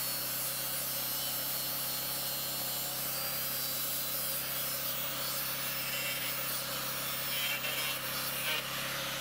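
Electric angle grinder running steadily, its disc cutting through the rim of a rusted steel 44-gallon drum.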